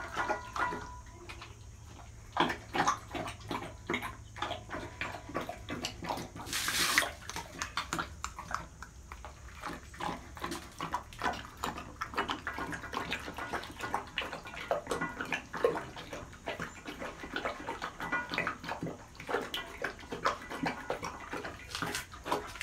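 Great Dane lapping and slurping thin ragi malt porridge from a steel bowl: a fast, irregular run of short wet laps.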